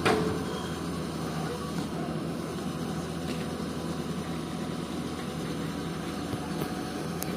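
Komatsu PC200 hydraulic excavator's diesel engine running steadily, with a sharp click at the very start.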